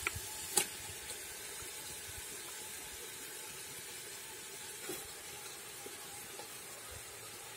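Onion-tomato masala sizzling steadily in hot coconut oil in a clay pot as raw chicken pieces are dropped in, with a few short knocks, the loudest about half a second in.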